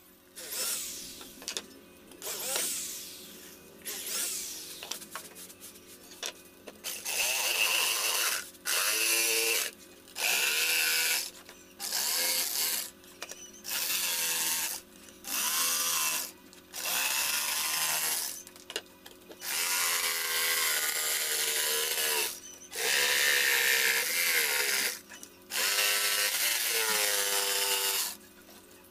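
Handheld electric jigsaw cutting a round hole in plywood, starting about seven seconds in. It runs in repeated one- to two-second bursts with short pauses between, and the motor pitch wavers as the blade works through the board.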